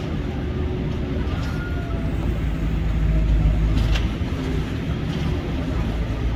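Heavy diesel machinery running with a steady low drone that swells briefly past the middle, with a few faint knocks.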